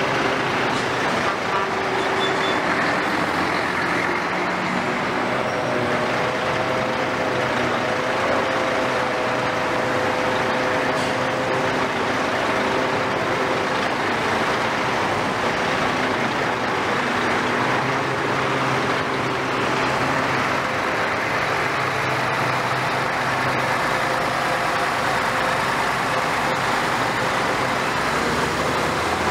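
Diesel engines of demolition excavators and lorries running steadily together, a continuous engine din with a hum that wavers a little in pitch.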